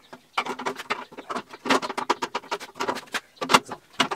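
Hands working on a small engine: irregular clicks, knocks and scraping of metal parts and tools.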